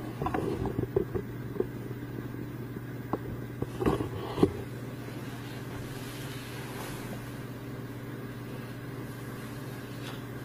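A few short knocks and clatters in the first couple of seconds and again around four seconds in, over a steady low hum.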